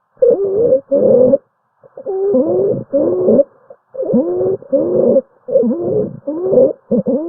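Recorded abnormal lung sounds: short, musical, gliding tones in pairs, roughly every two seconds, heard on both the in-breath and the out-breath, as with wheezes or rhonchi.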